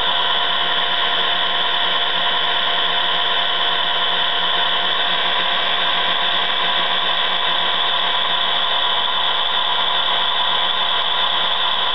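QSI Quantum sound decoder in an HO-scale Walthers Proto 2000 E7 model locomotive, playing a steady diesel engine sound through its small onboard speaker as the model runs.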